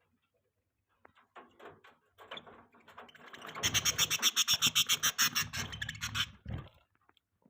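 Budgie making a rapid run of dry clicks, about ten a second, building up from about a second in, loudest in the middle and stopping shortly before the end.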